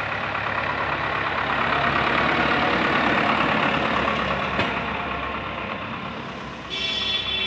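Farmtrac 6060 diesel tractor engine running steadily as it pulls a loaded soil trolley past, growing louder to about two to three seconds in and then fading.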